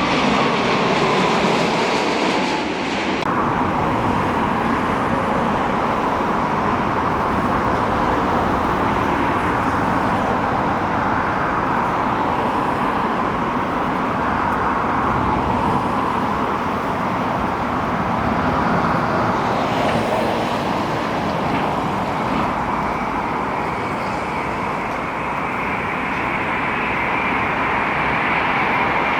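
Jet airliner engine noise, a loud steady rushing sound, with a high whine coming up in the last several seconds.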